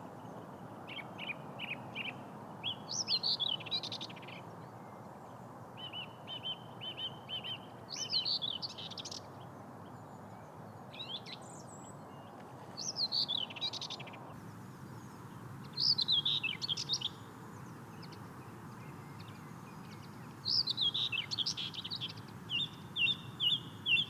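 Common whitethroat singing: short, scratchy warbled phrases repeated every few seconds. Twice, runs of evenly spaced repeated notes come in between the phrases, over a steady outdoor hiss.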